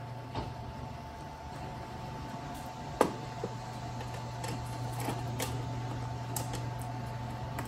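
Steady background hum, with scattered light clicks and one sharper knock about three seconds in, as an e-bike's crank arm and chainring are handled and fitted onto the bottom bracket spindle.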